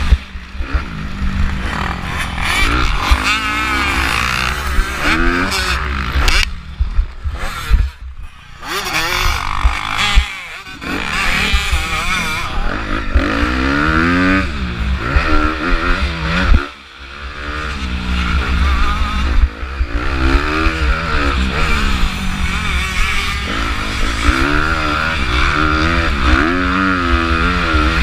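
A 2015 Honda CRF250R motocross bike's 250 cc single-cylinder four-stroke engine, heard on the rider's helmet camera, revving hard up and down through the gears. Three times the throttle is chopped and the engine note drops away sharply before picking up again. Wind buffets the microphone throughout.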